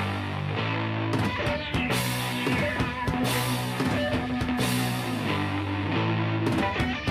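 Background rock music with guitar and a drum-kit beat.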